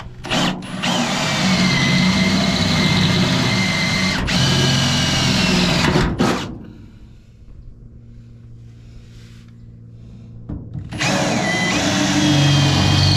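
Power drill boring through truck-bed sheet metal with a high whine from the bit. It drills for about six seconds, stops, then starts again about eleven seconds in.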